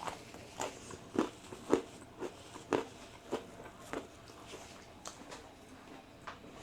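A person chewing a mouthful of stone-baked pizza close to the microphone: crunchy bites about twice a second, growing softer in the second half.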